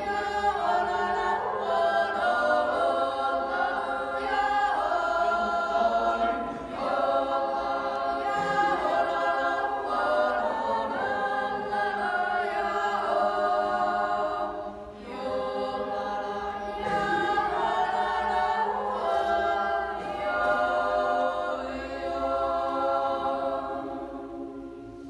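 Children's yodel choir singing a Toggenburg Naturjodel a cappella: wordless yodelling over held chords in close harmony. There is a short breath break about 15 seconds in, and the final chord fades away at the end.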